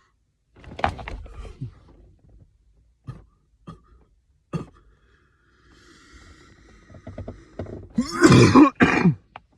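A man coughing up phlegm from deep in his chest: a first cough about a second in, then short gasps and a raspy, wheezing breath, and near the end a loud, harsh hack in two pushes with a groaning, zombie-like rasp as he brings it up.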